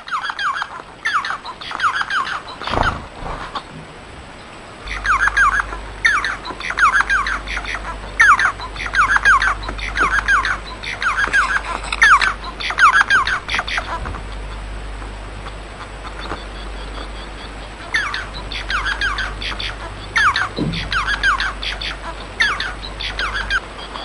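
Bengalese finch (society finch) calling in runs of short, sharp chattering notes that repeat in clusters. The notes thin out for a few seconds past the middle, then pick up again. A low steady hum sits underneath.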